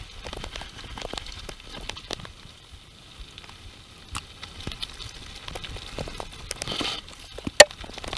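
Mountain bike riding down a rough, rocky dirt trail: a steady crackle of tyres on gravel and dirt with irregular clicks and rattles from the bike, and one sharp loud knock near the end.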